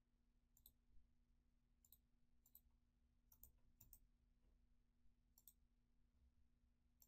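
Near silence broken by about six faint, sharp computer mouse clicks, unevenly spaced, as a dialog is clicked through; a faint steady low hum sits underneath.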